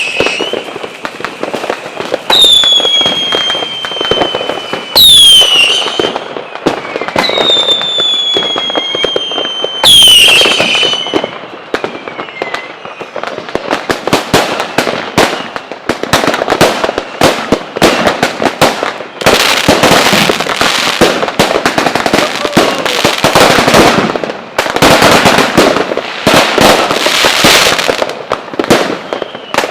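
Fireworks: about four whistling shells in the first ten seconds, each a high whistle that drops quickly in pitch and then holds, with loud bangs among them. Then comes a dense run of crackling and popping that turns loud from about twenty seconds in.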